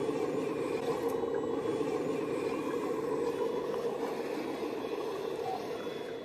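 Remote-controlled scale model excavator running: a steady mechanical drone from its motor and drive that eases off slightly toward the end.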